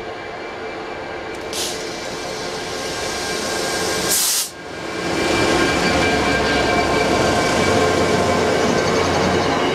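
Class 66 diesel-electric freight locomotive, with its EMD 12-cylinder two-stroke engine, approaching and passing close by, growing steadily louder. A short loud burst of hiss comes about four seconds in, as it draws level. Hopper wagons then roll past with a steady rumble of wheels on the rails.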